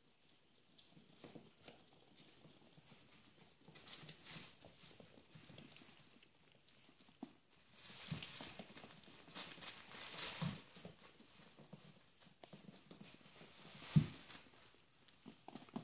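Chihuahua puppies' claws clicking and pattering on a wood floor as they scamper about, with bouts of rustling from a pee pad. A few thumps, the loudest near the end.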